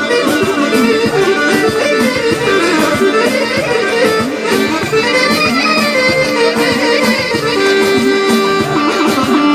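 Albanian aheng folk music, instrumental, with busy winding melody lines over a steady beat of sharp strokes; one note is held near the end.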